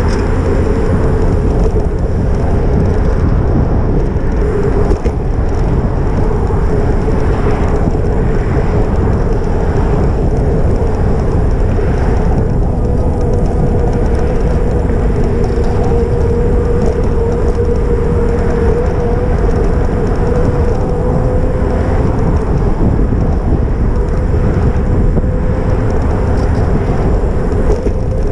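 Wind rushing over the camera microphone while riding an e-bike, with a steady, slightly wavering whine from the e-bike's motor running at cruising speed.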